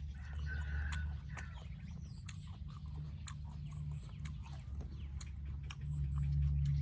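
Chickens clucking faintly over a steady low rumble, with scattered short clicks and a steady high-pitched whine.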